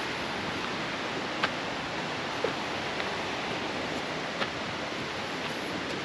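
Steady rush of water from a waterfall, with a few sharp clicks over the top.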